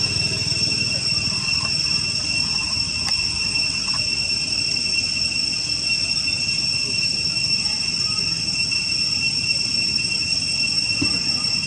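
Steady high-pitched drone of insects, one unbroken tone with a fainter higher overtone and no pulsing, over a low background rumble.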